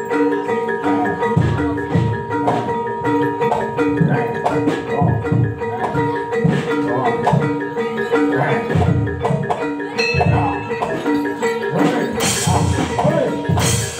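Live Javanese gamelan accompaniment for a barongan dance: hand drums beating under a repeating pattern of struck metallophone notes, with a held tone above them. Near the end come two bright crashing hits.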